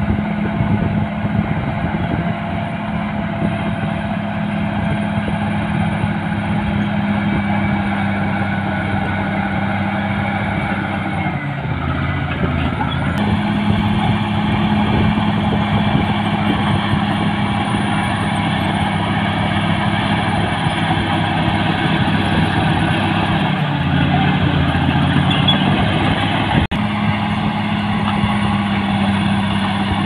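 Caterpillar D6R bulldozer's diesel engine running steadily as the dozer pushes soil. The engine note dips and recovers twice, about twelve seconds in and again about twenty-four seconds in.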